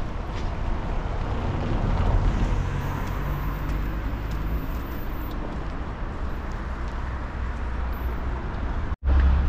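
Street traffic: a motor vehicle passing over a steady low rumble, loudest about two seconds in. The sound cuts out abruptly for an instant near the end.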